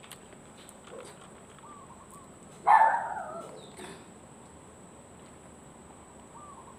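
A dog barks once, loudly, about three seconds in.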